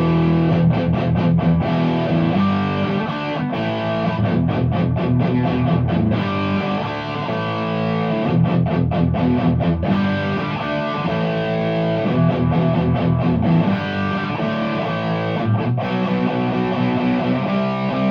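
Warmoth superstrat electric guitar played through an amp with some distortion: sustained chords and riffs, broken several times by short, sharp stops.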